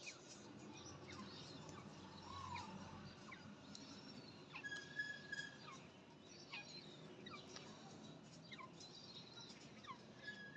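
Faint, scattered short bird chirps and twitters, with a brief high whistle about five seconds in.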